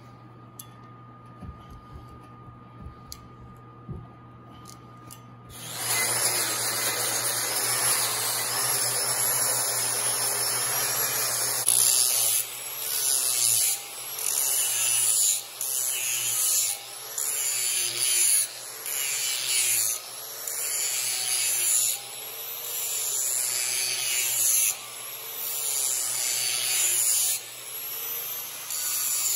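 An angle grinder with an abrasive disc starts about six seconds in with a high whine. It is then worked across a flat steel plate in repeated passes, the grinding noise surging and dipping about once a second as the surface is cleaned up.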